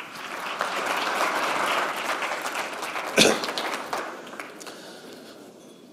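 Audience applauding a guest onto the stage, swelling over the first second and then slowly dying away. A short, louder sound stands out about three seconds in.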